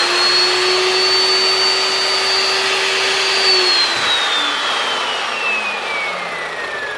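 Evolution 14-inch carbide-tipped multipurpose chop saw running free with no material in the vise, loud, with a high motor whine. The whine holds steady at full speed, then falls steadily from about three and a half seconds in as the blade winds down.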